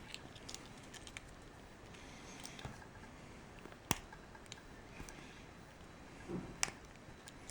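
Faint scraping and scattered sharp clicks as wrapping is cut away from a key by hand, with two louder snaps, one about midway and one near the end.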